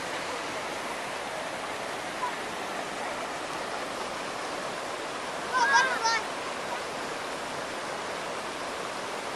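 Mountain creek rushing steadily over boulders. About halfway through, a short high-pitched call from a child's voice.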